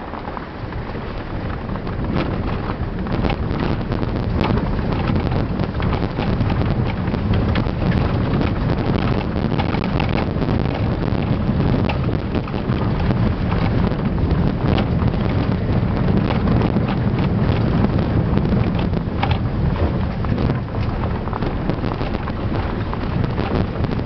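Inside a vehicle driving on a rough, wet dirt road: a steady low rumble of engine and tyres, with frequent small knocks and rattles. It grows louder about two seconds in, as the vehicle picks up speed.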